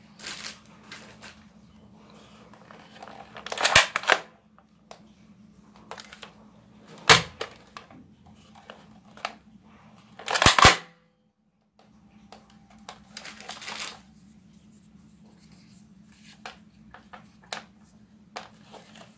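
A plastic Captain America-themed foam-dart blaster being handled and worked by hand: light plastic clicking and rattling, broken by three loud sharp clacks at about four, seven and ten seconds in.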